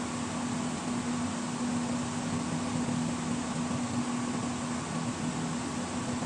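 A steady mechanical hum over a constant hiss, even throughout with no distinct strokes or impacts.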